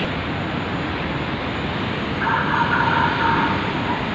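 Light-rail train running along the track, a steady rumble with rushing noise, and a brief held whine about two seconds in.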